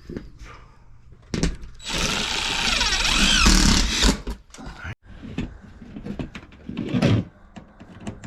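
Power drill driving a screw through a metal siding panel, running for about two seconds with its pitch wavering, then stopping. A few short knocks come before and after it.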